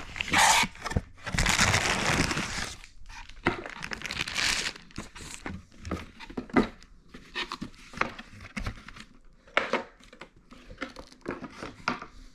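Packaging crinkling and rustling as items are unpacked by hand, with a longer rustle about a second in and another around four seconds, then scattered short crinkles and light clicks.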